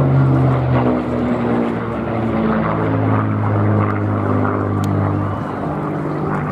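Supermarine Spitfire's V12 piston engine and propeller in a display flypast, a steady note that drops lower about a second in.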